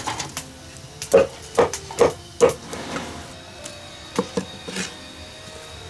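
Cleaver chopping pumpkin on a wooden chopping board: four sharp chops about half a second apart, then three lighter ones a couple of seconds later.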